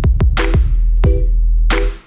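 Electronic background music with drum-machine beats, a heavy bass and a repeating synth chord.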